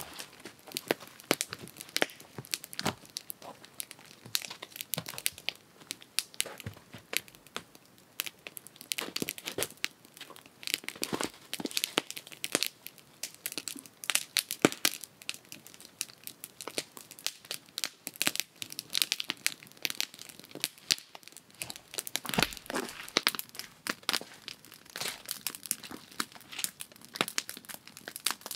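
Raindrops hitting a tarp: an irregular patter of sharp ticks.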